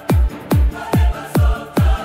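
Electronic dance music with a heavy kick drum that drops sharply in pitch, about two beats a second, over a steady synth.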